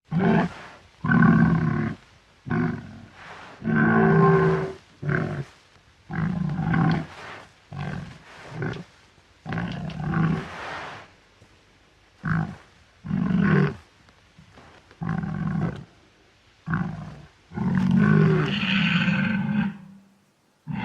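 Wild boar grunting over and over: a long series of deep grunts, each lasting from a short moment to about a second, with short pauses between. There is a longer, drawn-out grunt near the end.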